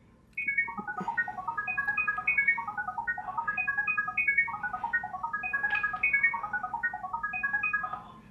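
Google OnHub router sending its setup code as sound: a rapid run of short electronic beeps at shifting pitches, about ten a second, that passes the pairing data to the phone app. It starts about half a second in and stops near the end.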